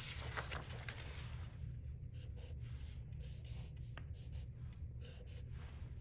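Sharpie permanent marker drawing on paper: faint scratching strokes of the felt tip, with a steady low hum underneath.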